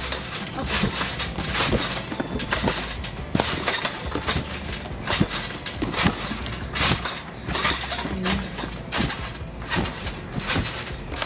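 Repeated irregular thuds of someone jumping on a trampoline, with loose plastic bottles and containers knocking against the mat as they bounce.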